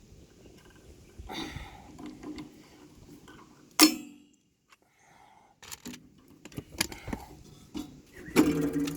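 Hand pop-rivet gun setting the last rivet in a sluice box: small metallic clicks as the handles are worked, and one sharp snap about four seconds in as the rivet's mandrel breaks off. More clicks and handling knocks follow, louder near the end.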